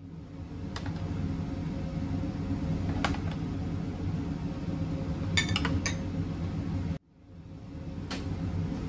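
Dishes and utensils clinking now and then over a steady low kitchen hum, with a quick run of clinks about five and a half seconds in. The sound cuts out abruptly about seven seconds in and fades back up.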